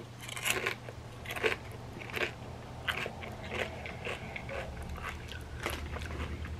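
Close-up chewing of a chip loaded with creamy dip: irregular, crackly crunches every half second to a second as the chip is chewed with the mouth closed.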